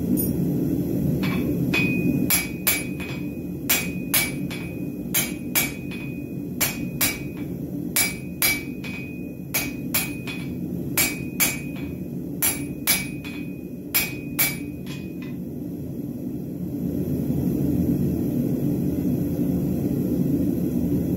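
Blacksmith's hand hammer striking a hot bar on the anvil, about twenty ringing blows, mostly in quick pairs, drawing half-inch round steel down to 3/8 square; the hammering stops about 15 seconds in. The gas forge's steady low roar runs underneath.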